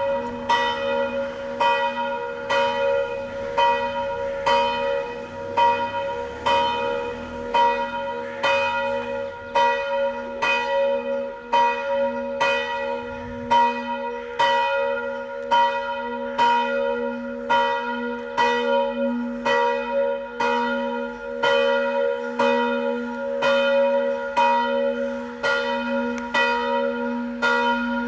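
A single church bell rings the noon bells with evenly spaced strokes, about three every two seconds. A steady humming tone carries on beneath the strokes.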